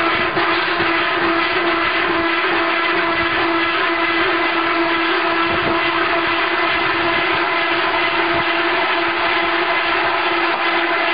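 Automatic log feeding and centering machine for a veneer peeling lathe running with a steady mechanical hum from its motor and hydraulics, holding one strong low tone with fainter higher whines over a noisy haze.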